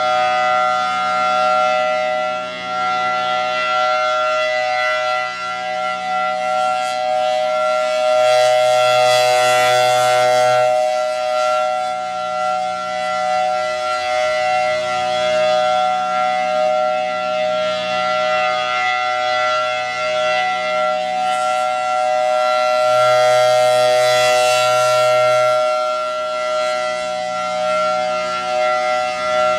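Federal Signal Thunderbolt 1003 outdoor warning siren sounding the Alert signal, a steady tone that does not rise or fall in pitch. Its horn rotates, so the sound swells louder and fades about every 14 seconds as the horn sweeps past.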